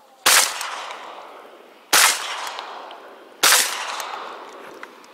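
Three shotgun shots about a second and a half apart, each trailing off in a long echo.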